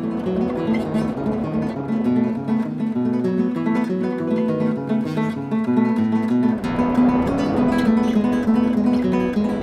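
Background music led by acoustic guitar, plucked and strummed in a quick run of notes, with a deeper low end coming in about two-thirds of the way through.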